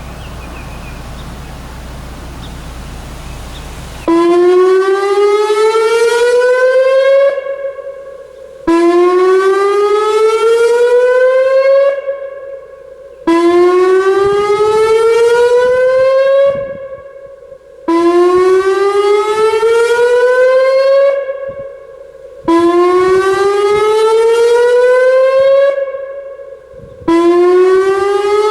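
Electronic dam failure warning siren sounding its test alert, a repeating whoop: each tone rises over about three seconds, holds briefly and cuts off sharply, then starts again about every four and a half seconds. The siren comes in loud about four seconds in, after a few seconds of low background noise.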